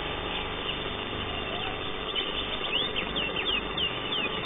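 Cucak hijau (greater green leafbird) singing: a run of quick, sharp sliding notes that starts about two seconds in and grows denser, over steady background noise.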